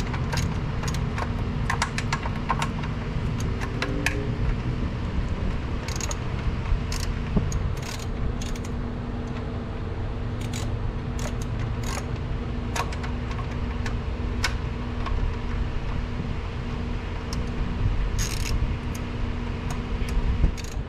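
Hand tools working on metal car parts: scattered metallic clicks and clinks, thickest in the first few seconds and sparser later, over a steady low hum.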